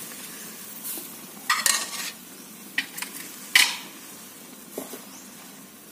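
Wooden spatula stirring cassava leaves and coconut milk in a metal pot, with several sharp scrapes and knocks against the pot over a steady low hiss of the cooking curry.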